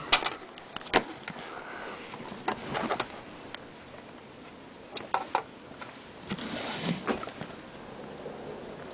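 Scattered light clicks and taps of a plastic Lego minifigure being handled between fingers and set down on a desk, with a few of them close together about five seconds in.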